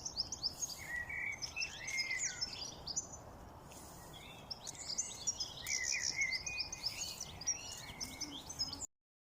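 Songbirds chirping and singing in quick, high overlapping notes over a steady background hiss. The chirping thins out briefly about halfway through, picks up again, then cuts off abruptly near the end.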